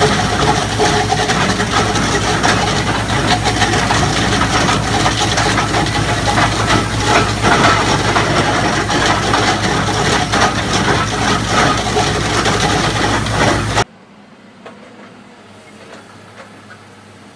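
Heavy machinery running loudly, with a dense clatter of rattles and clanks over a steady engine hum. It cuts off abruptly near the end, leaving a much quieter, duller hum.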